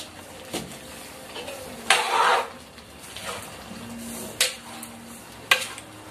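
Metal ladle scraping and clinking against a steel wok as a thick pork menudo stew is stirred. There is one louder scrape about two seconds in and sharp clinks at about four and a half and five and a half seconds.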